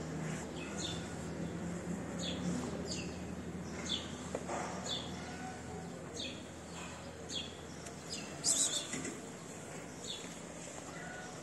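Small birds chirping repeatedly, short high falling chirps about once or twice a second, with a louder flurry of chirps near the end.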